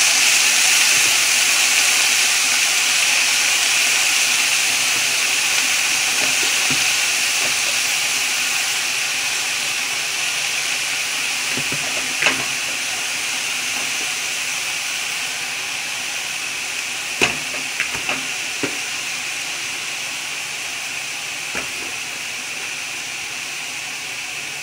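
Chopped pak choi, broccoli, carrot and onion sizzling in hot oil in a deep pot: a steady hiss that slowly fades. A few short sharp clicks come through the middle and toward the end.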